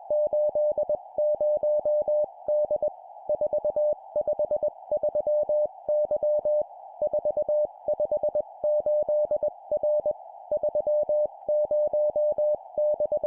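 Morse code (CW) at 20 words per minute: a single steady beep keyed on and off in dots and dashes. It is sent in short groups of three numbers and a letter, with brief pauses between groups, over a faint continuous hiss.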